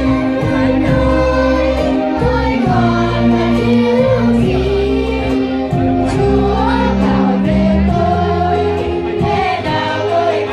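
Children's choir singing a hymn together, the voices moving from note to note over steady, sustained low accompaniment notes.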